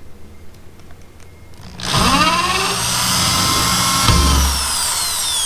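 Power drill with a 1/8-inch bit drilling into a boat's fiberglass deck: quiet at first, then about two seconds in the motor spins up and runs steadily and loudly to the end, with a short low rumble about four seconds in.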